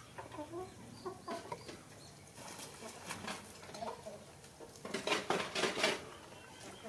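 Chickens clucking softly in the background. A cluster of sharp clicks and taps comes about five seconds in.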